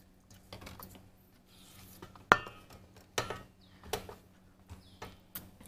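A spatula scraping around the inside of a stainless steel mixing bowl to scrape down its sides, with scattered knocks against the metal. The loudest is a sharp clank a little over two seconds in.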